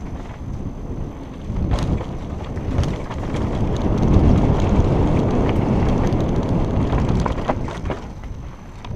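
Wind rushing over a helmet-mounted camera's microphone as a mountain bike descends a dirt and gravel trail, with tyre noise and scattered clacks and rattles from the bike. The rushing is loudest in the middle and eases near the end.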